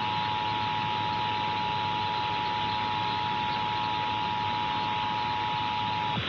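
Emergency Alert System attention signal: the steady two-tone alert (853 and 960 Hz) of a Required Monthly Test, sounding over a hiss and cutting off just before the end.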